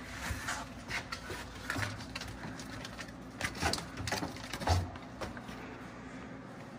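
Rubber serpentine belt being pulled out past the engine's pulleys and parts by hand: a string of short knocks and scrapes, busiest around the middle.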